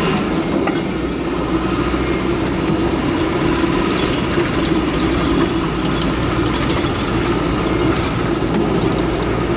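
KA Mataram express passenger train running at speed, heard from inside the coach: a steady rumble of wheels on rails with an even hum.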